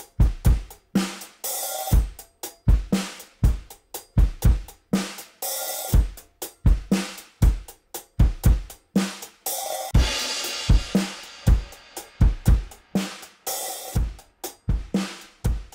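A recorded drum kit groove of kick, snare and hi-hat, heard through a WesAudio Beta76 compressor on the drum bus. Crash cymbals come in several times, with a longer cymbal wash about ten seconds in.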